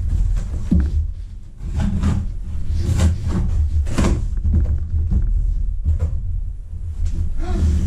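Cardboard box being opened: a knife slitting the packing tape in several strokes, then the flaps scraping and rustling as they are pulled open. A steady low hum runs underneath.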